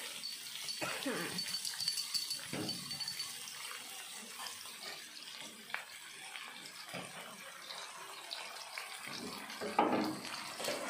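Oil and pork meatballs sizzling in a frying pan with a steady hiss, and a brief voice-like sound near the end.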